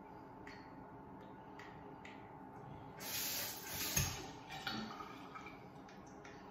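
Faint clicks of dental floss snapping between teeth. About three seconds in comes a brief hiss of water spraying into the bathroom sink, lasting a second or so, with a dull knock near its end.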